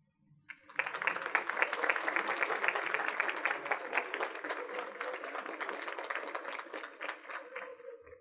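Audience applauding in a lecture hall, starting about three-quarters of a second in and tapering off toward the end.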